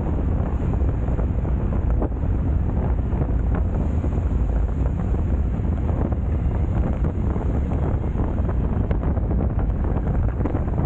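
Strong, steady wind buffeting an action camera's microphone on a road bike moving at speed.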